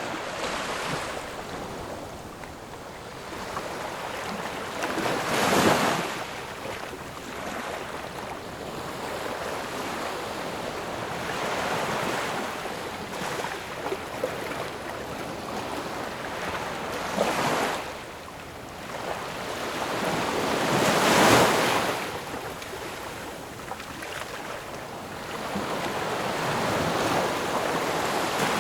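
Ocean waves breaking and washing up the shore in a steady wash of surf. Two larger waves crash about 6 and 21 seconds in, with smaller surges between them.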